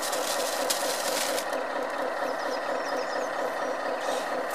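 A steady engine running at idle, with a couple of light knocks as pieces of split wood are set into a steel keg.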